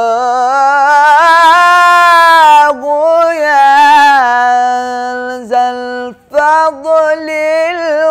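Young male chanter singing an Egyptian ibtihal unaccompanied, in long ornamented melismatic phrases with a wavering vibrato on the held notes. The line breaks off briefly a few times.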